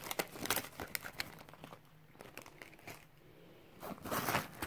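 Crinkling of a clear plastic zip pouch and the snack wrappers inside it being handled, in a cluster of sharp crackles over the first second or so. Near the end comes a denser rustle as the fabric backpack is moved.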